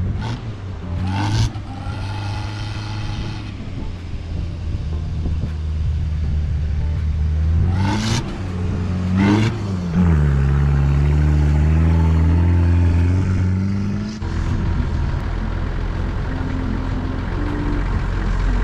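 A ute's engine driving through soft beach sand. The revs climb sharply twice, about eight and nine and a half seconds in, then the engine pulls hard and steady under load for a few seconds before dropping off suddenly. A steady low engine drone follows.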